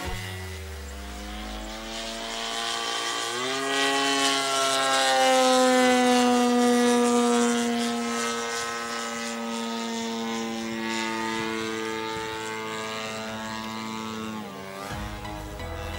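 The DLE 60cc twin-cylinder two-stroke petrol engine and 23x8 propeller of a 2.3 m Extra 330 aerobatic model plane in flight, running with a steady, even note. About three seconds in, the note grows louder and higher, then slowly drops in pitch over the next ten seconds. Music comes back in near the end.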